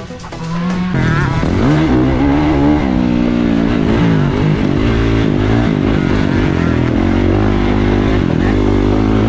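Motocross bike engine heard from on board, revving up and down as the throttle opens and closes around the dirt track; it comes in loud about a second in.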